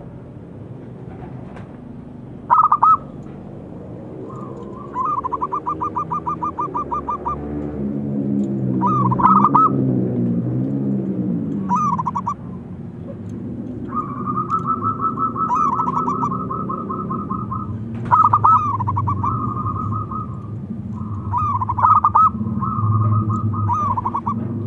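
Zebra dove (perkutut) cooing. Short ringing notes alternate with rapid staccato trills, each trill lasting two or three seconds, repeated through the whole stretch.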